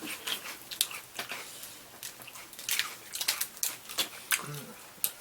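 Close-up eating sounds of a seafood boil: wet chewing and lip smacking, a string of short sharp clicks and smacks scattered irregularly throughout.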